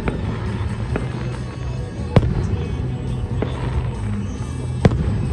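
Aerial fireworks shells bursting: four sharp booms a second or so apart, the loudest about two seconds in.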